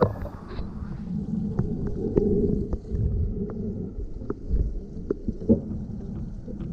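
Muffled underwater sound from a camera held below the surface of a stream pool: a steady low rumble of moving water with scattered small clicks and ticks.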